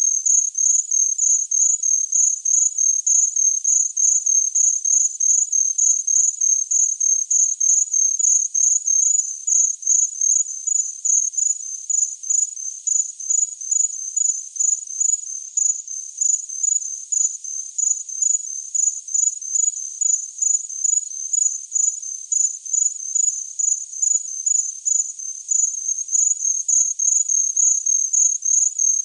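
Cricket chirping steadily, a high-pitched chirp repeated evenly about twice a second over a faint hiss.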